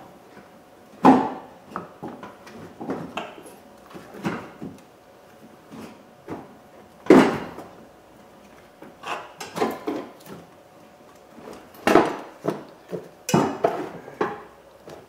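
Hard plastic cooling-fan shroud knocking and scraping against the condenser and surrounding parts as the fan assembly is worked loose by hand: irregular knocks and clatter, the loudest about a second in, about seven seconds in and about twelve seconds in.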